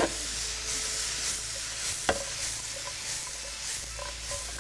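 Cut vegetables sizzling in a very hot frying pan as the pan is tossed, the sizzle swelling and fading a few times a second. Two sharp knocks come, one at the start and another about two seconds in.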